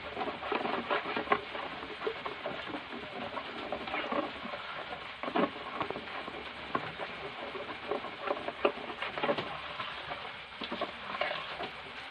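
A bare hand stirring thick puto batter in a large bowl, working in ube food colouring: irregular wet sloshing and patting noises from the strokes.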